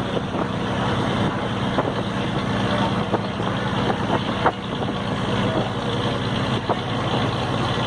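Ferry's engine running steadily with a low, even hum, and a few brief knocks, the sharpest about four and a half seconds in.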